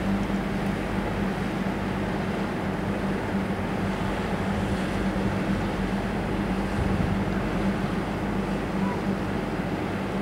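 Outboard motor of a small motorboat running steadily, a constant droning hum.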